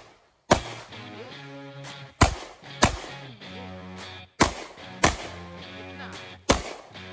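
Six pistol shots, some in quick pairs about half a second apart, over background music with held notes.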